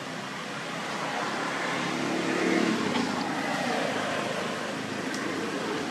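A motor vehicle passing: a steady rushing noise that swells about two seconds in, with a low hum and a tone that slides down in pitch as it eases off.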